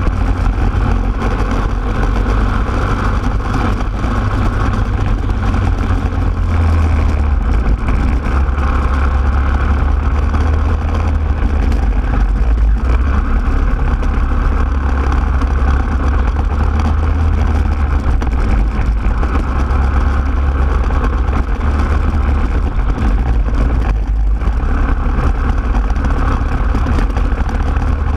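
Racing kart engine running at speed on a lap of the track, its note easing and picking up again as the kart goes through the corners.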